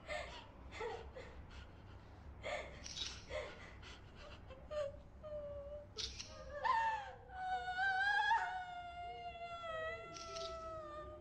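A woman crying in fear: short gasping sobs and whimpers, then from about six and a half seconds a long wavering high wail that slowly falls in pitch and dies away near the end.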